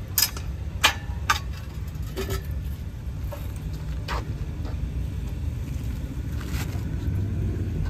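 Metal clicks and clanks of a folding hand truck being collapsed and loaded into a car's cargo area: three sharp knocks in the first second and a half, then a few lighter ones, over a steady low rumble.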